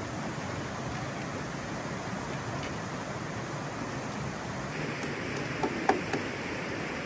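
Steady rush of water, as from a waterfall or fast stream. A few short sharp knocks or clicks come near the end, the second of them the loudest.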